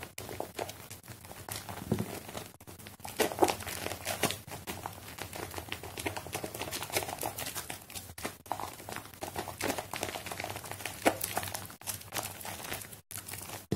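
A soapy sponge thick with lather being squeezed and kneaded by hand: wet squelching with a constant, irregular crackle of foam bubbles popping.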